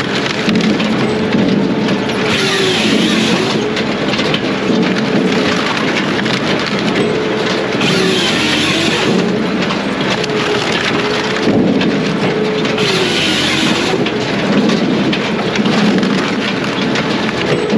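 Brute Force USA 18-24HD diesel firewood processor running hard. About every five seconds the steady whine sags in pitch and recovers, with a harsher rasp as the saw cuts through an oak or hard maple log.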